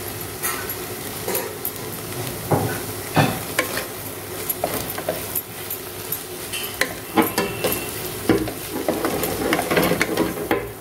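Wooden spatula stirring and scraping a potato, sweet corn, onion and grated cheese filling in a non-stick kadai, with frequent clicks and knocks of the spatula on the pan over a steady sizzle of the oil.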